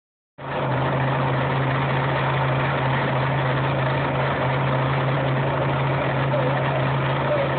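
Drag boat engine idling steadily at an unchanging pitch.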